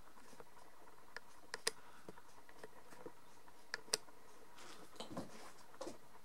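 Handling noise from a handheld camera: about five sharp clicks between one and four seconds in, then soft rustling a little later, over faint room noise.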